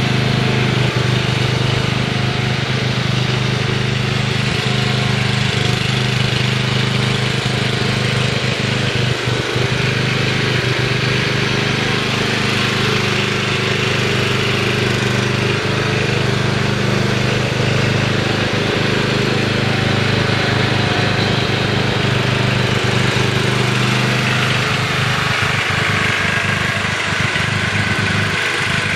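Riding lawn mower's engine running steadily as the mower drives across the lawn. The low engine hum thins a little over the last few seconds as the mower moves away.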